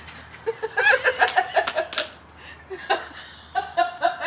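People laughing: a quick run of short, breathy laughs about a second in, then a higher-pitched laugh starting near the end.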